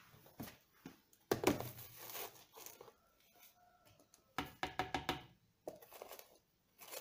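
Scattered handling noises: a plastic tub of chopped green herbs being moved and rummaged on a stainless steel counter, with a few short knocks and rustles in two clusters, about a second in and again around the middle.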